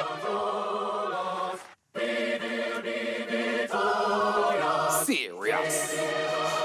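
Intro of a 140 bpm grime instrumental: held choir-like chords that change every second or so, with no drums yet. It cuts out for a moment near two seconds in, and a swooping pitch glide dips and rises near the end.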